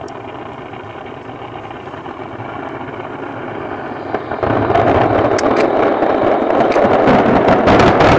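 Fireworks finale: many aerial shells bursting at once in a continuous rumble that grows louder, surging sharply about four seconds in, then thick with crackling pops and bangs.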